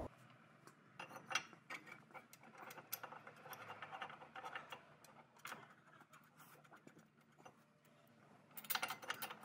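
Faint, scattered light metallic clicks and taps as a front brake caliper bracket and its mounting bolts are handled and threaded in by hand, with a louder rustle of handling just before the end.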